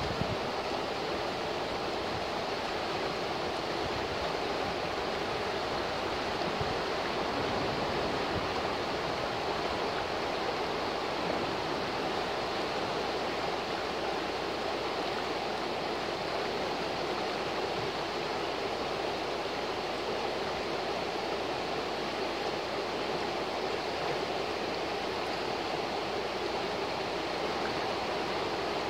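Steady rushing of a shallow, fast river running in white riffles over rocks.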